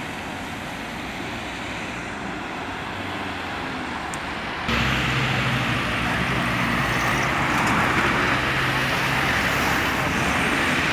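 Town street traffic: cars passing, heard as a steady roadway hum. About halfway through it jumps abruptly louder, with a close vehicle engine's low hum over the traffic noise.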